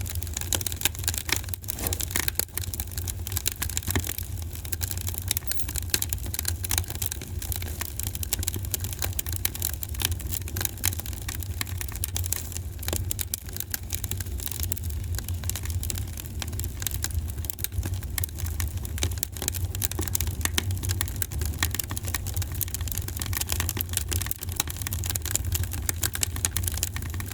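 Wood fire crackling in a fireplace: a dense, irregular stream of small sharp pops and snaps over a steady low rumble.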